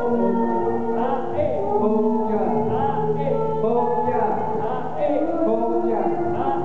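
Music for a Javanese dance, with singing in long held notes that bend in pitch.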